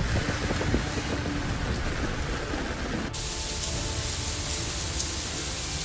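Heavy rain pouring steadily onto flooded streets. The sound changes abruptly about three seconds in, turning duller.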